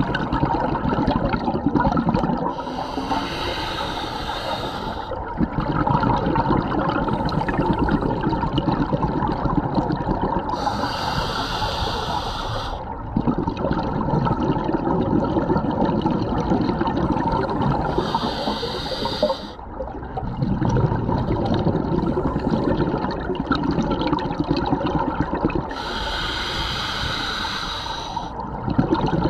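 A scuba diver breathing through a regulator, heard underwater: four slow breaths, each a hissing inhale followed by a longer rumble of exhaled bubbles.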